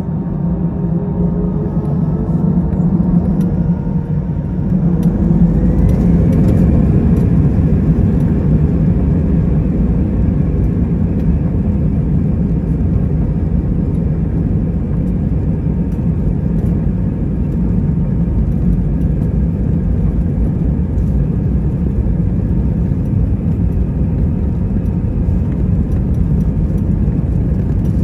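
Airbus A320-200's jet engines heard from inside the cabin, spooling up with a rising whine over the first few seconds, then a loud, steady rumble once they are at full power. This is the sound of the takeoff roll.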